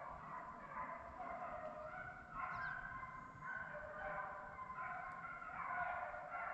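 A pack of hunting hounds baying faintly, several voices overlapping without a break: the dogs are running a deer's scent on a drive.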